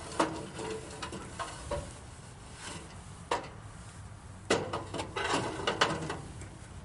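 Scattered clinks and knocks, about a dozen, from hand work on a sawmill during a band blade change, with a denser cluster about two-thirds of the way through.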